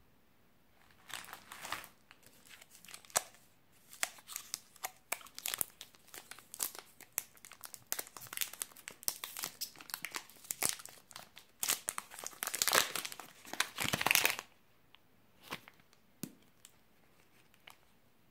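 Plastic chocolate-bar wrapper crinkling and tearing as it is opened by hand, a dense run of crackles that is loudest about twelve to fourteen seconds in. After that come a few separate sharp clicks.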